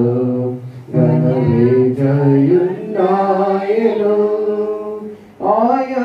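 Man singing a worship song into a microphone in long held, slightly sliding notes, with short breaks between phrases, over a sustained electronic keyboard chord.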